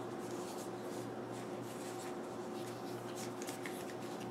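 Faint rubbing and rustling of plastic earmuff cups and headband being handled and pulled apart, over a steady low hum.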